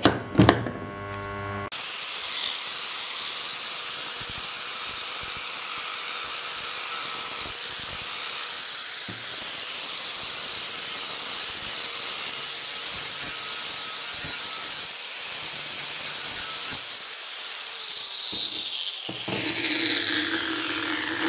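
A handheld power tool with an abrasive wheel grinds the paint off the steel moped exhaust so the weld will take. It is a steady high whine over a grinding hiss that starts suddenly about two seconds in, then winds down with falling pitch near the end.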